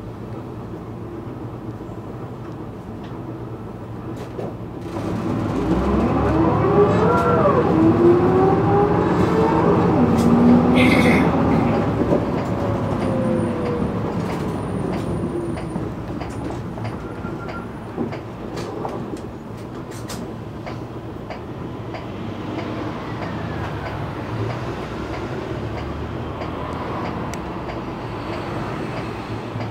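City bus pulling away and accelerating, heard inside the cabin: the engine note rises and falls in steps as it changes gear, with a short burst of hiss partway through, then steady ride noise.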